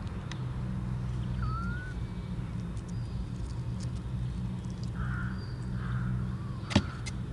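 Outdoor ambience over a steady low rumble. A brief thin rising chirp comes about a second and a half in, then three harsh bird caws about five seconds in, and a single sharp click near the end.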